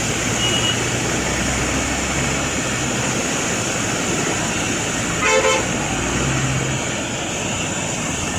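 Steady road-traffic noise with a low engine hum, and a vehicle horn honking once briefly about five seconds in, the loudest sound.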